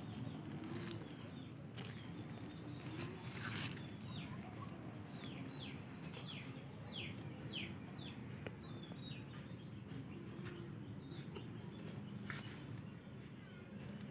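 A bird calling a run of about eight short, falling chirps through the middle, over a steady low rumble, with a few sharp clicks.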